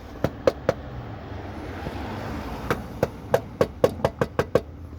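Sharp metallic knocks on a car's rusted underbody metal: three in the first second, then a quicker run of about nine near the end. The structural metal being struck is rotted and caving in.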